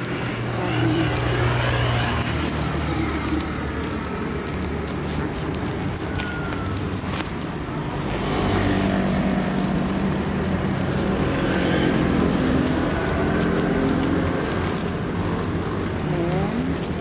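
City street traffic: car and motor scooter engines running and passing, a steady low engine hum, with one engine rising in pitch near the end.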